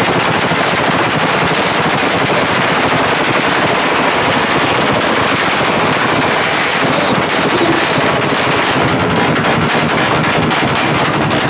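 Racing motorcycle engines on stands revved hard and held at high rpm, a loud continuous rapid-fire rattle of exhaust.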